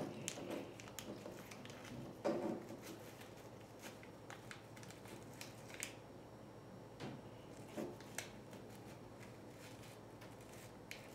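Faint rustling of a small packet and light clicks of a little spoon scooping powder out of it, with a few scattered ticks and knocks.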